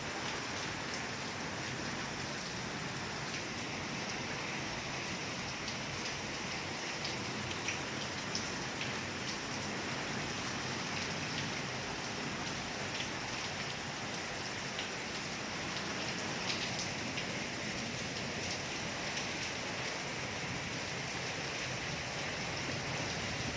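Steady rain falling on a surface, with scattered separate drops ticking through the hiss. No thunder stands out.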